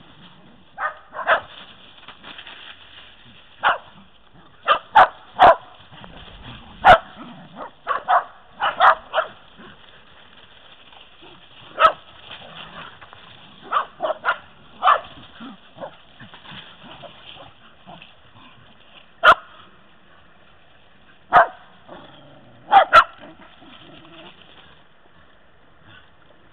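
Shetland sheepdog barking: short, sharp barks at irregular intervals, often two or three in quick succession, dying away in the last few seconds.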